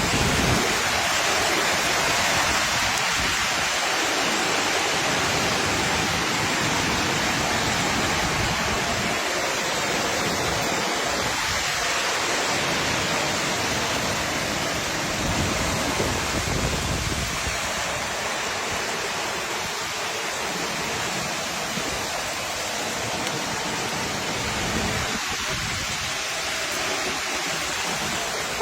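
Heavy rain pouring down in a storm, a steady dense hiss with no letup.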